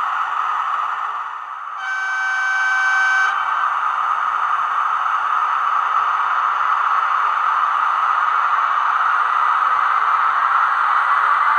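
Sound decoder of a model HXD1D electric locomotive sounding its horn once, a steady blast of about a second and a half, about two seconds in, over a steady hissing running noise played through the model's small speaker.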